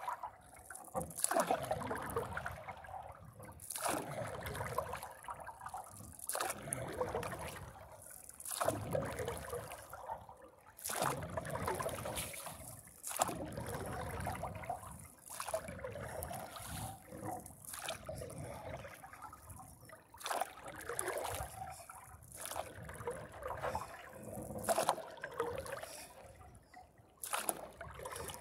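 Paddle strokes in lake water from a paddleboard: a splash and trickle of water with each stroke, about every two and a half seconds.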